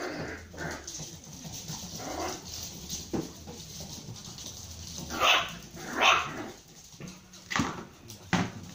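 Puppies barking and yipping as they play, with two louder high barks a little past halfway.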